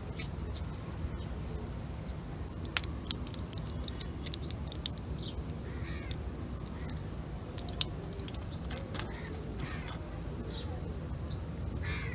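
Bird calls, with two clusters of sharp clicks and taps a few seconds apart over a steady low hum.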